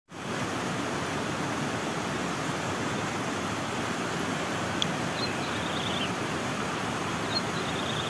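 Steady rush of a flowing stream, with faint high bird chirps twice, about five seconds in and again near the end.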